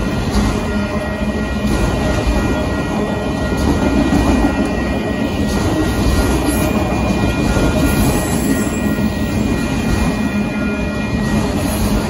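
Union Pacific auto train's autorack freight cars rolling past close by: a loud, steady rumble of steel wheels on rail.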